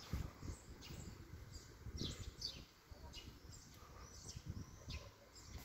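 Small birds chirping: short, high, falling chirps repeated every half second to a second, faint over low background noise.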